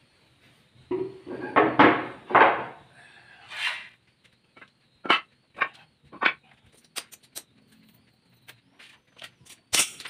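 Cut teak boards set down and knocked against a ceramic tile floor, a quick cluster of wooden knocks early on, then single sharper knocks and clinks as small metal hardware (hinges, screws, a steel ruler) is laid on the tiles.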